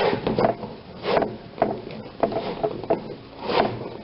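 Rubber tire bead being levered off a small garden-cart wheel rim with the smooth end of a wrench, a run of short scrapes and creaks of rubber and metal as the bead is broken a little at a time.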